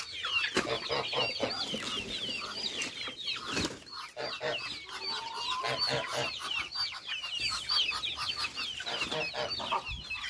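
A poultry flock calling: chicks peeping constantly in quick high chirps, with hens clucking and one longer call about halfway through. Leafy greens rustle as they are handled and dropped.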